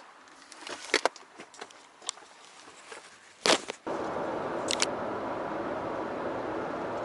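A few light clicks and knocks, a heavier thump about three and a half seconds in, then a steady vehicle running noise that starts abruptly and carries on.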